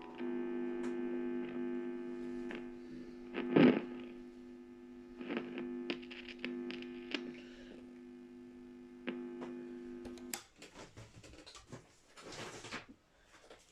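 Electric guitar's wiring buzzing with mains hum through an amplifier, with scratchy crackles and pops as the controls and contacts are handled, and one loud crackle about four seconds in. The hum cuts off suddenly about ten seconds in, leaving scattered clicks and handling noise.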